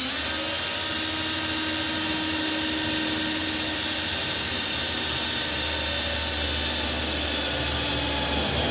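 Cordless drill running steadily, driving a uni-bit step drill bit into the sheet-metal hood to bore a rounded corner for a cut-out.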